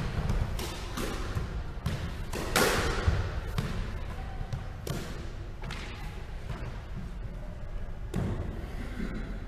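A squash ball being hit in a rally: sharp, echoing smacks of racquet, front wall and floor, roughly one a second, the loudest about two and a half seconds in.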